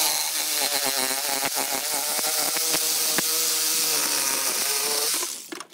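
Reciprocating saw running and cutting through the copper return-bend tubes along the edge of an air-conditioning coil, with a steady motor tone and rattling clicks. It starts suddenly and winds down shortly before the end.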